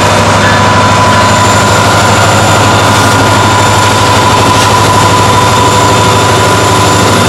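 Diesel locomotive running close by: a loud, steady engine drone with a constant low hum and a held higher whine, with no change in pace.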